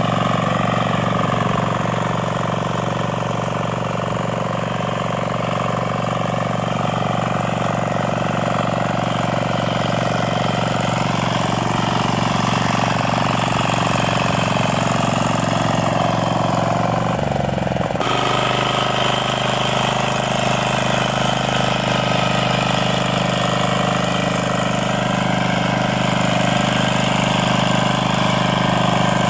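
A 10 hp diesel power weeder's engine running steadily under load as it cultivates between crop rows. Its pitch dips briefly about seventeen seconds in, then it runs on steadily.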